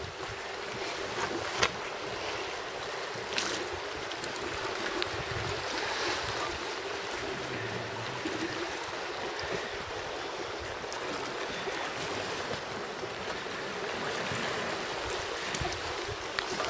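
Steady wash of sea water against the breakwater and falling rain, with a couple of faint clicks in the first few seconds.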